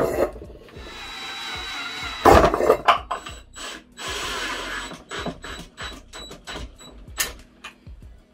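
Cordless drill running in short bursts as it bores through the bottoms of thin metal pots, with loud knocks and clatter as the pots are handled and set down.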